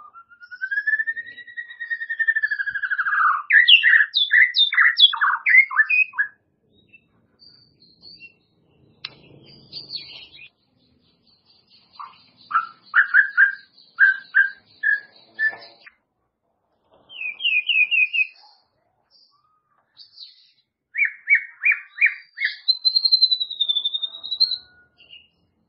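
White-rumped shama (murai batu) singing in separate phrases: a long clear whistle that rises then falls, runs of rapid repeated notes, and a wavering high whistle near the end, with pauses of a few seconds between phrases.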